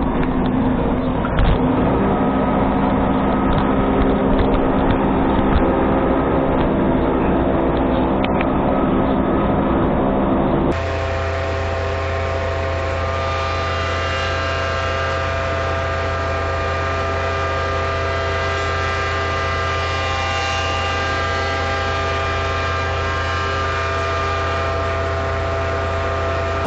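18-inch Woodmaster thickness planer running, a loud steady machine hum with a whine of several steady tones. About ten seconds in the sound changes abruptly to a slightly quieter, even hum with a strong low drone.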